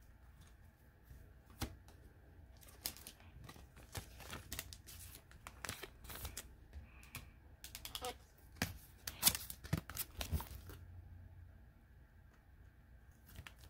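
Trading cards being handled and flipped through, with crinkling of a pack wrapper: a run of small clicks, flicks and crinkles, busiest about nine to ten seconds in, stopping about three seconds before the end.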